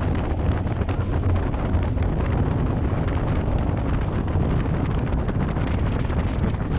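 26-foot Cheetah Wildcat powerboat running steadily at about 35 mph, its engine and the rush of water under the hull mixed with heavy wind buffeting on the microphone.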